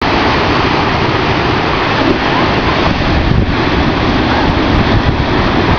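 Ocean surf breaking and white water washing, a steady loud rush, with wind buffeting the microphone.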